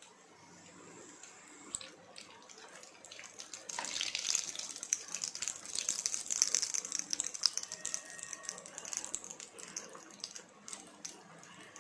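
Aloo bondas (batter-coated potato fritters) deep-frying in hot oil, a steady crackling sizzle. About four seconds in the sizzle grows louder and busier as the fritters are stirred with a slotted spoon, then settles back.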